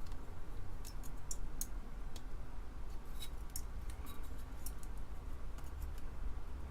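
Irregular small metallic clicks and ticks as the pins of a solder-tail IC socket strip are worked down into the holes of a circuit board, catching on a misaligned pin, over a low steady hum.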